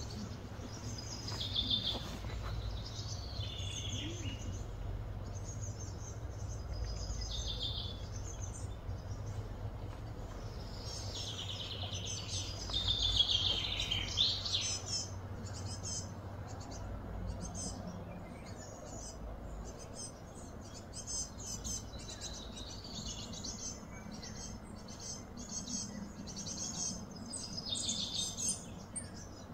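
Birds chirping and calling, many short high calls, some sweeping down in pitch, over a steady low background rumble.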